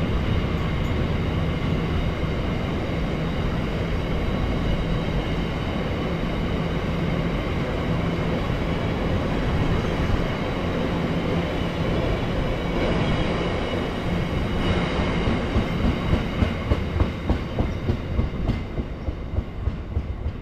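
Class 66 diesel locomotive hauling a freight train past, its engine running with a steady low drone. After about 14 seconds the drone gives way to the regular clickety-clack of the wagons' wheels over the rail joints.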